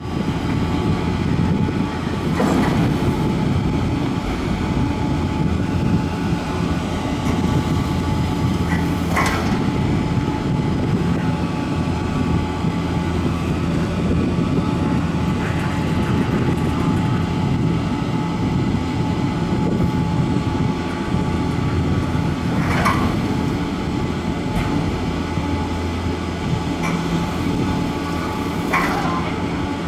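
Top-station machinery of a detachable Doppelmayr-Garaventa Telemix combination lift running with gondola cabins only: a steady hum and rumble of the drive and rollers. A sharp clack sounds four times, a few seconds apart, as cabins pass through the station.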